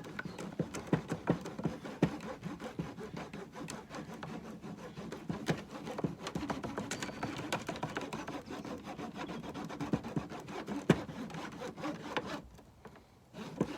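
A block of beeswax being rubbed back and forth over a plastic beehive frame foundation: continuous scraping with frequent small clicks. It stops about twelve seconds in.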